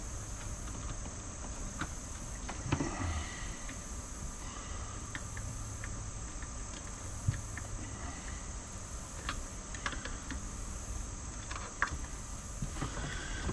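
Sparse faint clicks and handling noises of wires and a small plastic switch module being connected, over a steady low hum.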